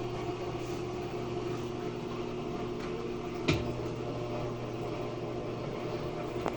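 Mabe top-loading washing machine in its spin cycle after draining, the drum turning with a steady motor hum and no knocking. A single sharp click sounds about halfway through.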